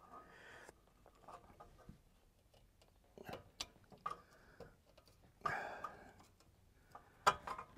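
A metal tool scraping and clicking in the bore of a seized ABS wheel speed sensor, picking out the broken sensor's copper windings. Faint scratches and light ticks, with a longer scrape about five and a half seconds in and a couple of sharp clicks near the end.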